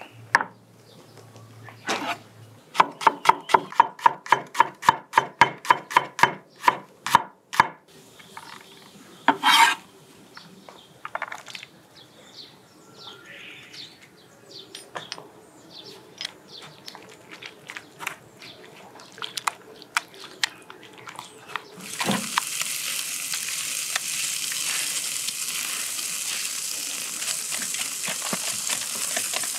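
Chef's knife chopping garlic on a wooden cutting board, quick even cuts about four a second for several seconds, then a few scattered clicks. About three-quarters of the way in a steady sizzle starts: a tomahawk steak on a grill being basted with herb butter.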